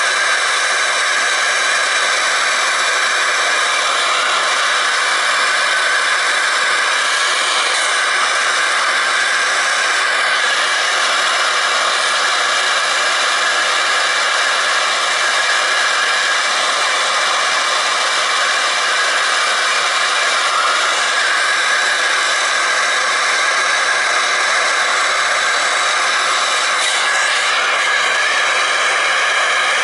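Gas torch flame hissing steadily as it heats the copper sweat joints of a zone valve for soldering.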